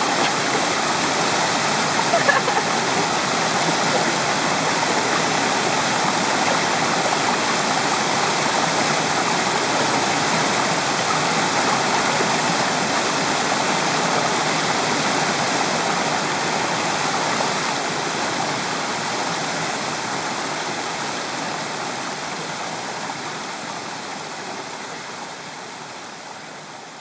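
Water of a small stream running over rocks and churning into a rock pocket, a steady rush that fades out over the last several seconds.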